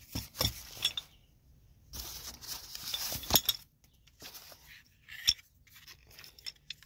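Plastic wrap and foam packaging rustling and crinkling as a replacement liftgate glass hinge is lifted out of its cardboard box, with small clicks and clinks of the metal part. Two spells of crinkling, then scattered clicks, the sharpest about five seconds in.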